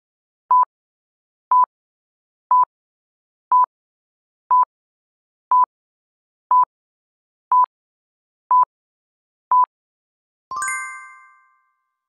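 Quiz countdown-timer sound effect: ten short beeps at one steady pitch, one a second, then a bright chime of several tones that rings out for about a second as time runs out and the answer is revealed.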